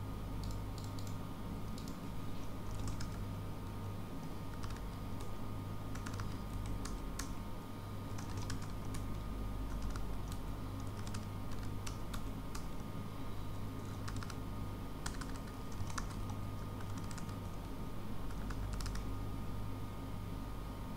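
Typing on a computer keyboard: irregular keystrokes with short pauses, over a steady low hum.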